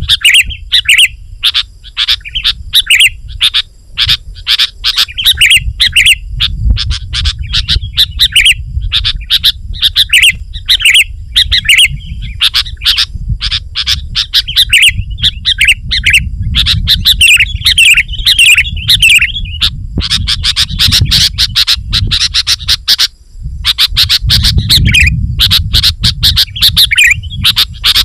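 Sooty-headed bulbul (kutilang) singing vigorously, a dense run of quick chattering, bubbling phrases with barely a pause. Under it runs a steady low rumble, with one short break about 23 seconds in.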